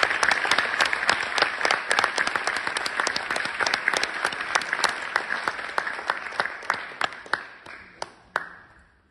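Audience applauding an announced prize winner. The clapping thins out and stops about eight and a half seconds in.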